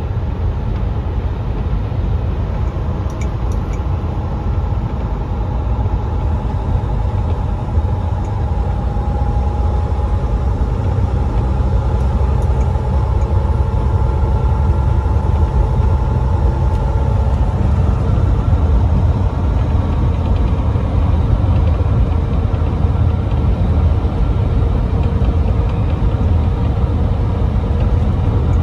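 Steady low engine and road noise from inside the cab of a Volvo semi truck cruising at highway speed.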